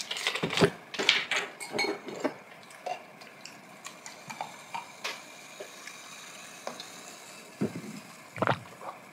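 Chopsticks and spoons clicking against bowls and dishes, with small wet eating noises. The clicks come thick in the first two seconds or so, thin out to scattered ticks, then a few louder knocks near the end.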